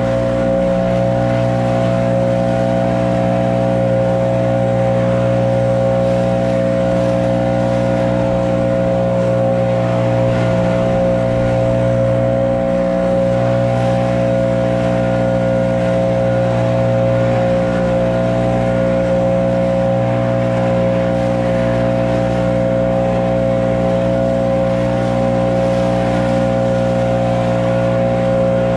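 Small gasoline engine of lawn-care equipment running steadily at constant throttle, a continuous engine hum with a steady whine.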